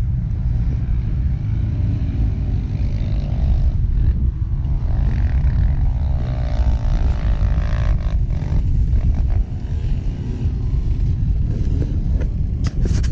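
Off-road vehicle engines revving in the distance, their pitch wavering up and down, most clearly in the middle stretch, under a steady rumble of wind buffeting the microphone.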